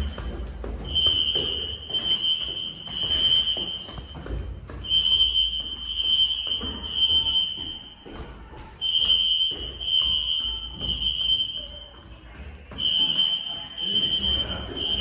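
System Sensor SpectrAlert horn/strobes (P1224MC) sounding a fire drill in the temporal-three pattern: three high horn blasts, a short pause, then three again, repeating.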